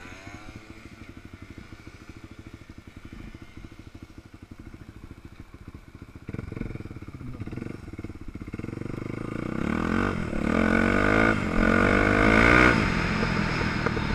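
Dirt bike engine idling with an even beat, then revved and pulling away. Its pitch climbs through a gear change and peaks near the end before dropping back.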